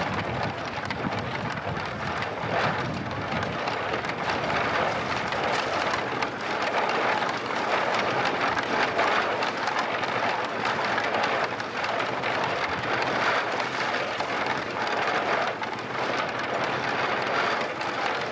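Hay being chopped in a chaff cutter as it is fed in by hand, with the knife wheel spinning: a steady, dense rustling mechanical noise that swells a little as each armful goes in.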